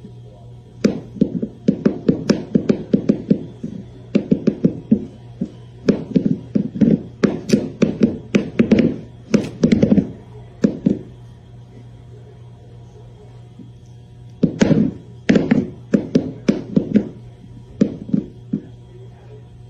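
A cat's bowl clattering against a wooden floor as the cat paws and tips it, a rapid run of knocks several times a second, in three spells with pauses between.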